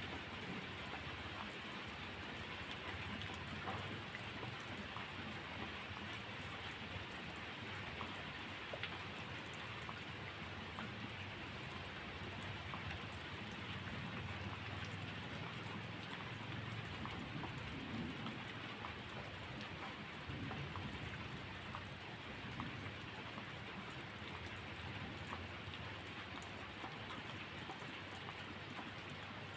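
Steady rain falling, with scattered small drop ticks and a low rumble of thunder that swells and fades a few times.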